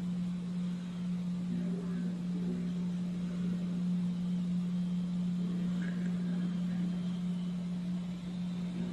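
A steady, low electrical-sounding hum at one pitch, with faint, indistinct voices underneath.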